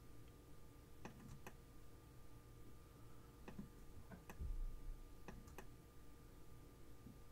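Faint computer mouse clicks, several scattered single and paired clicks, with a low thump about four and a half seconds in, over a faint steady hum.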